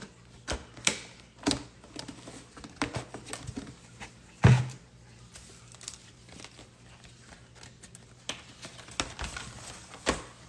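Scattered taps, clicks and rustles of handling close to the microphone, with one louder thump about four and a half seconds in, over a faint steady hum.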